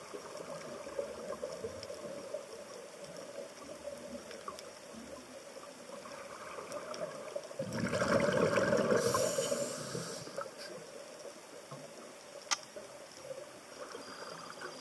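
Underwater hiss through a dive camera's housing. About halfway through, a scuba diver's exhaled bubbles rush past for about two seconds, and a single sharp click follows a couple of seconds later.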